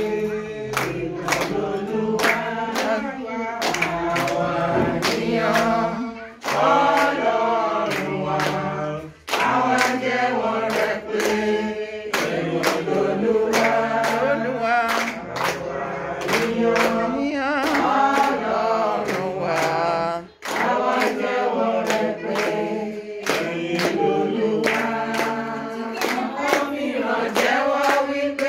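A group of women singing together, with hand claps keeping a steady beat and brief breaks between phrases.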